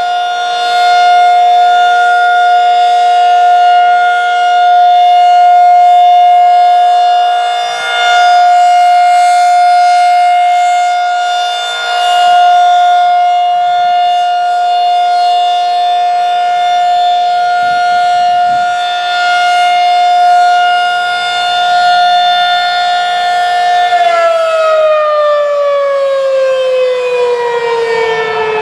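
Federal Signal 2001-SRN rotating electro-mechanical siren sounding a steady Alert tone, loud, its volume swelling and fading as the rotating horn sweeps past. About 24 seconds in the power cuts off and the siren winds down, its pitch falling steadily.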